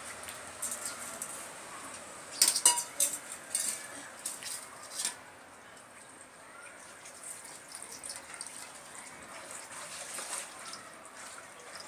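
A spoon clinking against a bowl as a small child feeds himself: a cluster of sharp clinks about two and a half seconds in and another about five seconds in, with lighter taps and scrapes between.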